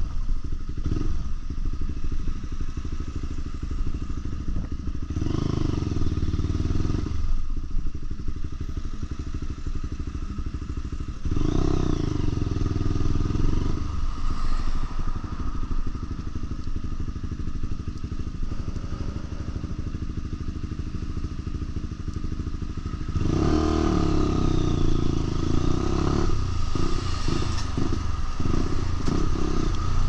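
Lexmoto LXR 125's single-cylinder four-stroke engine through a Black Widow aftermarket exhaust, riding on the road. It revs up hard three times, about five, eleven and twenty-three seconds in, with quieter, steadier running in between.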